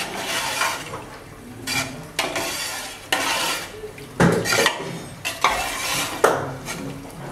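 A metal ladle stirring boiled mixed dal in a metal pot, scraping and knocking against the pot in a series of strokes, with sharper clanks about four and six seconds in.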